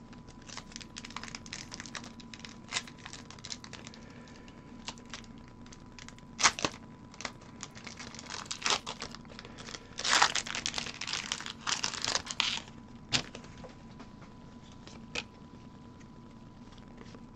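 A foil booster-pack wrapper being crinkled and torn open, with scattered crackles and a louder tearing rush about ten seconds in that lasts two to three seconds.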